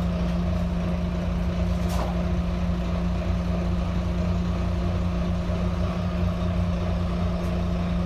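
Volvo B9TL bus's diesel engine idling steadily, heard from inside the passenger cabin as a constant low rumble with a steady hum, while the bus stands still. A single short click sounds about two seconds in.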